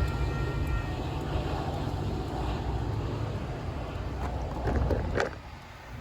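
Metra commuter train's diesel locomotive rumbling as the train pulls away, with wind on the microphone. A faint held horn chord dies away a little under a second in.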